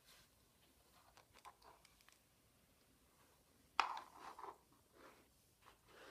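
Faint rustling and small clicks of a nylon LED dog collar being handled by hand, with a louder sharp crunch of handling about four seconds in, followed by a short stretch of rustling.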